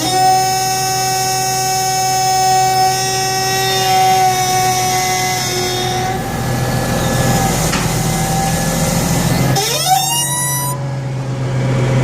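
Hydraulic steering squeal on a Caterpillar 836G compactor, a steady high-pitched whistle over the running diesel engine. The squeal holds for about six seconds, fades, then sweeps up in pitch near the end. It comes only in left turns, and the owner links it to the steering crossover valve.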